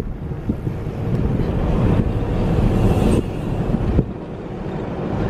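Wind buffeting the microphone through an open window of a moving vehicle, over the vehicle's road and engine noise, with a couple of brief knocks about three and four seconds in.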